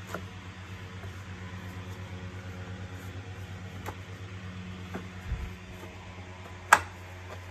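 Plastic latches of a vacuum cleaner's top cover clicking into place as the cover is pressed down: a few light clicks and a dull thump, then one sharp, loud snap near the end, over a steady low hum.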